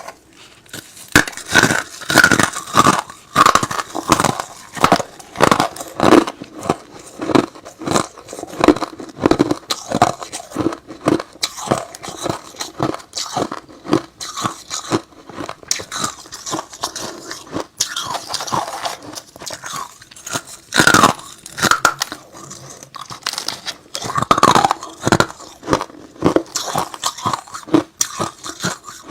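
Hard ice, including freezer frost, being bitten and chewed close to the microphone: a run of sharp cracks and crunches, several a second, with a few louder bites.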